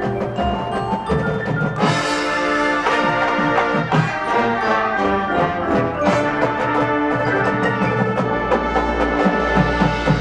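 Marching band playing: front-ensemble mallet percussion such as marimbas at first, then the full band with brass and percussion comes in about two seconds in. A low rumble sounds underneath near the end.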